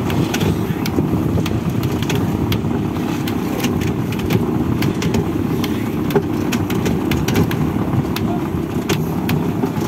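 A fishing boat's engine runs steadily with a low rumble, driving a rope-hauling capstan winch, while scattered sharp clicks come from the rope working on the wooden drum.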